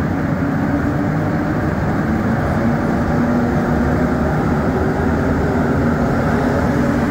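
Steady running noise heard from inside a Montreal Metro AZUR (MPM-10) rubber-tyred train car moving along the tunnel: a dense rumble with a low hum running through it.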